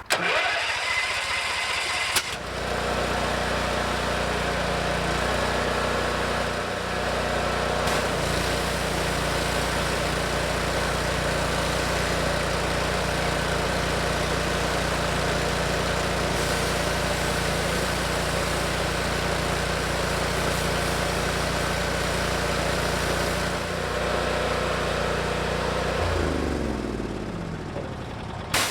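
Landa hot-water skid pressure washer's engine cranked and catching about two seconds in, then running steadily with the spray gun's trigger held open, while the pressure washer is tested for a reported loss of pressure. Near the end it is shut off, its pitch falling as it winds down.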